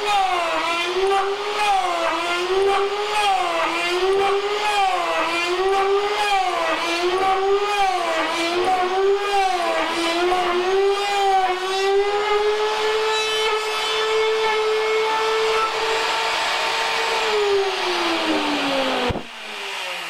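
Electric router in a mortising jig cutting a lock mortise in the edge of a wooden door: the motor's pitch sags and recovers about once a second as the cutter is worked back and forth under load, then runs free at a steady higher pitch, and near the end it winds down with falling pitch after being switched off.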